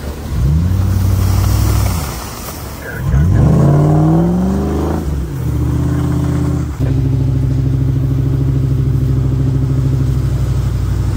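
Off-road 4x4 engine revving up and easing off twice while crawling through snow, then holding a steady drone from about seven seconds in.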